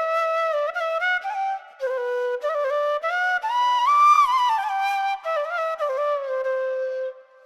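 Flute music laid over the video: a single melody of held notes that step and glide up and down, with a short break about two seconds in, ending just before the close.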